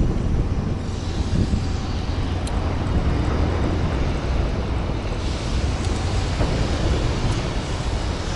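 Riding a Suzuki Address 125 scooter: steady engine and road noise with wind rushing over the microphone, the wind hiss growing louder about five seconds in.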